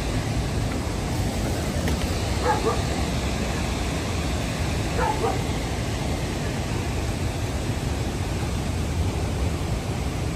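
Steady rushing of a river and waterfall, an even roar of water. Two short pitched calls, like yelps, break through it about two and a half seconds apart.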